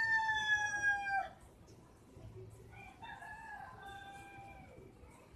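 A rooster crowing: one long crow ends about a second in, and a second, fainter crow follows about two seconds in.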